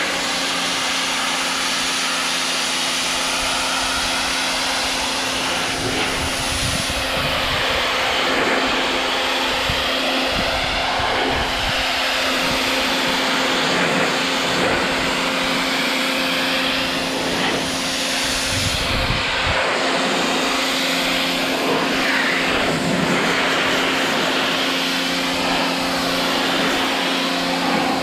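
Powerworks 1700 PSI electric pressure washer running: a steady hiss of the water jet spraying against vinyl siding over the steady hum of its electric pump motor.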